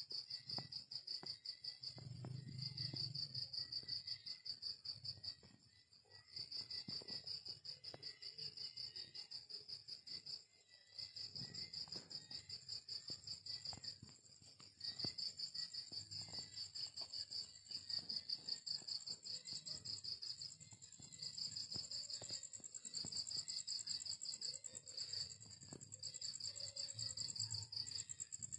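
Crickets chirping in a rapid, pulsing trill that breaks off briefly a few times, over a fainter, higher, continuous insect buzz.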